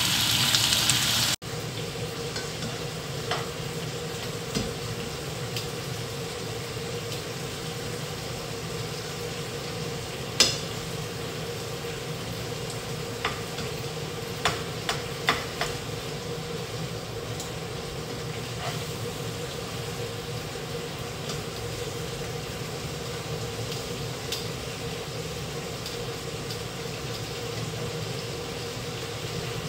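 Beef strips sizzling in a frying pan. The sizzle is loud at first, then drops abruptly about a second and a half in to a quieter steady sizzle over a low hum. Scattered sharp clicks of metal tongs against the pan come as the meat is turned.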